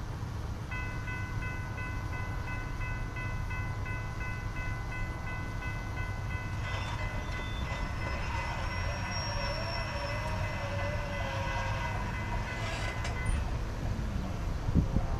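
Railroad grade-crossing warning bell ringing rapidly as the crossing signals activate, stopping about 13 seconds in. A distant diesel locomotive horn sounds from about seven seconds in, wavering as it carries, over a low rumble.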